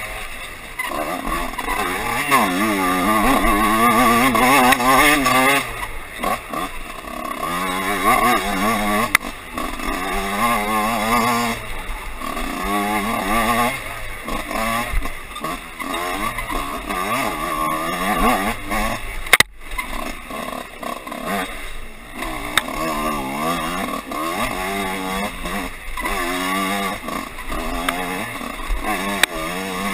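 Dirt bike engine heard from on the bike, revving up and down again and again as the rider opens and closes the throttle along a tight trail.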